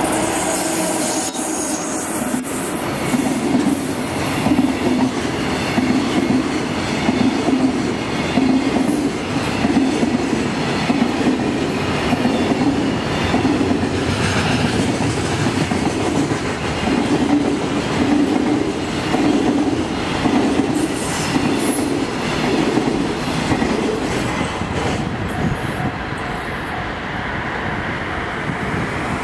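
Freight train of container wagons hauled by a JNR Class EF66 electric locomotive rolling past close by. The locomotive goes by at the start, then a steady rhythmic clatter of wagon wheels on the rails. It eases off near the end as the last wagon passes.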